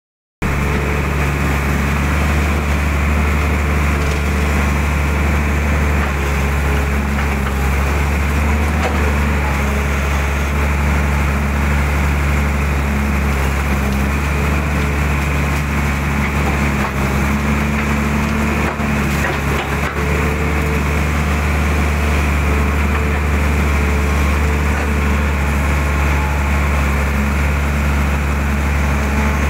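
Mitsubishi hydraulic excavator's diesel engine running steadily as it works, heard from the cab, its low hum shifting slightly in pitch while the arm and bucket dig and lift wet mud out of a ditch. A few faint knocks come about two-thirds of the way through.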